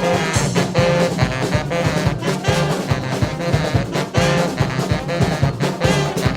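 Brass band playing an up-tempo tune live, with held horn notes over a steady, even drum beat.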